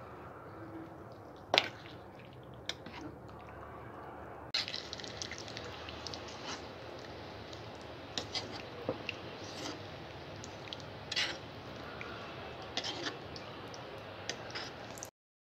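Steel spoon stirring thick, wet bottle gourd curry in a pan, squelching, with sharp clinks of the spoon against the pan over a steady low hiss. It cuts off suddenly just before the end.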